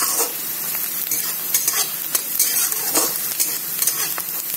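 Chopped onion and garlic frying in oil in a pan, sizzling steadily, stirred with a stroke every second or so.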